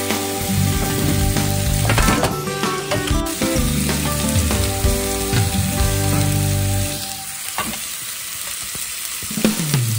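Sliced pork sizzling as it fries in a square tamagoyaki pan.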